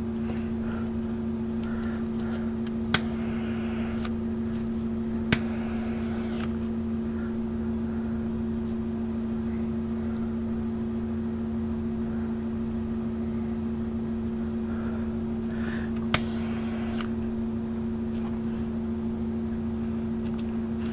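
A handheld torch lit three times on the resin. Each lighting is a sharp igniter click followed by about a second of flame hiss. Underneath runs a steady electric fan hum.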